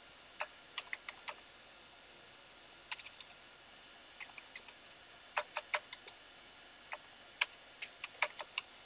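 Computer keyboard being typed on: separate clicky keystrokes in short, uneven bursts with pauses between them.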